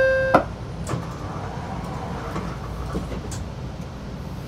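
Inside a BART rapid-transit car, a loud steady electronic chime tone cuts off about half a second in. A few clicks and knocks from the doors and car follow, over the car's steady low rumble while it stands at the station before departing.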